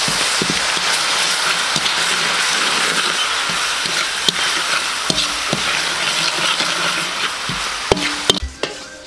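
Minced garlic and green onion sizzling in hot oil in a large metal wok, stirred with a metal spatula that knocks and scrapes against the pan now and then. The sizzle drops off sharply near the end.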